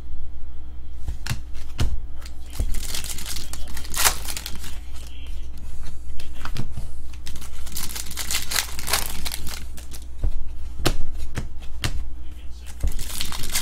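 Trading card pack wrappers crinkling and tearing, with cards being handled and flipped through by hand in irregular rustling bursts, over a steady low hum.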